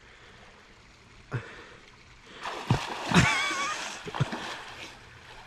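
A person jumping into a lake: a splash about three seconds in, with water spattering and settling for a second or so after.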